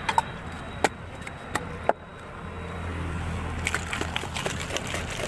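Sharp clinks and knocks of drinking glasses and plastic cups being handled and set down on a vendor's cart, five distinct hits in the first two seconds. About two-thirds of the way in, a quick rattle of small clicks starts as a glass capped with a plastic cup is shaken to mix the lemonade.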